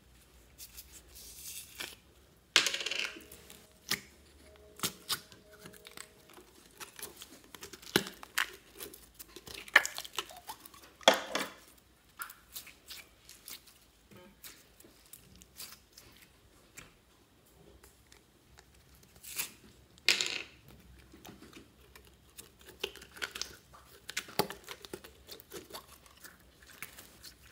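Store-bought glitter slime being pulled from its plastic tub and squeezed by hand: irregular sticky crackles, pops and tearing sounds, with the sharpest snaps a couple of seconds in, around ten seconds and around twenty seconds.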